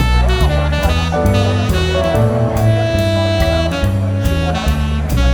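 Jazz background music: a saxophone playing a melody over a walking double bass and drums.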